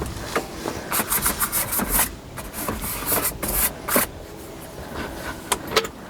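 Irregular scraping, rubbing and clicking, as of things being handled and shifted inside a tractor cab, with several sharper knocks about a second in and again near four seconds.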